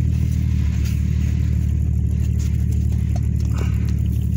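Vehicle engine running steadily with a low drone, heard from inside the cab.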